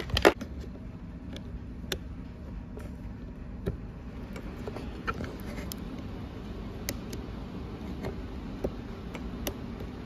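Scattered small clicks and taps of insulated spade connectors being pushed onto the terminals of a USB charging socket and handled among wiring and plastic panels, the loudest just after the start. A steady low hum runs underneath.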